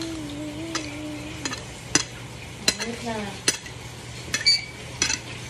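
Metal spoon and fork scraping and clinking against a ceramic plate of rice, with about eight sharp clinks spread through. A voice hums a held note in the first second and a half and a short rising hum about three seconds in.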